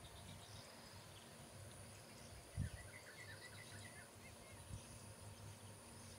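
Faint outdoor ambience with a low steady rumble. About two and a half seconds in, a bird gives a quick run of short chirps, and a single dull thump sounds at the same moment.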